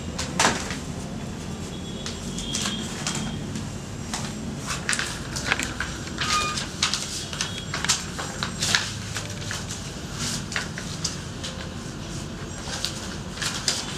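Papers and a file folder being picked up and handled on a desk: irregular rustles and light clicks over a steady low background hum.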